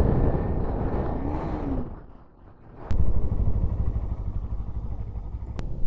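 Bajaj Pulsar NS200's single-cylinder engine running on the move with wind rumble on the mic, its revs rising and falling about a second in. The sound drops away briefly about two seconds in, then cuts back in abruptly and loud just before three seconds.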